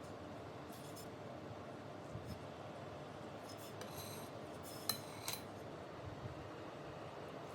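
Quiet kitchen handling of baking utensils: a few light clicks and taps, with one short ringing clink about four seconds in and a sharper click just after five seconds.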